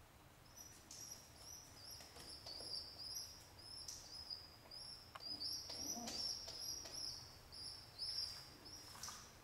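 Homing pigeon squab peeping while it begs and is fed by its parent: a rapid string of short, high squeaks, about two or three a second, with a few brief rustles of fluttering wings.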